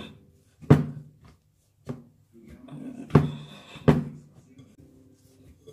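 Hand kneading soft, still slightly sticky saffron-bun yeast dough in a glass bowl: a few sharp slaps and thumps, about four strong ones with smaller sounds between.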